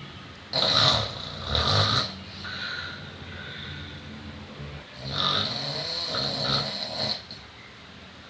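A sleeping person snoring loudly: two heavy snores about half a second and a second and a half in, a quieter stretch, then a longer snore from about five seconds to seven.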